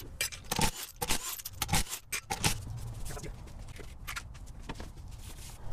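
Scattered light clicks and clinks, like small metal parts or tools being handled, most of them in the first three seconds and fewer after.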